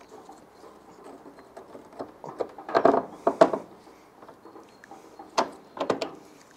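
Metal knocking and clicking as a Vespa GTS300 rear shock absorber is worked into its mounts, in two clusters: a longer run about two seconds in and a shorter one near the end.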